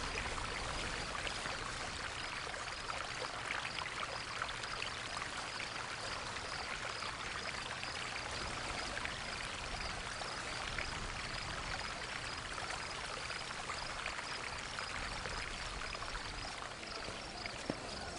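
Small stream trickling over rocks, a steady babble of water, with a faint high chirp repeating a few times a second.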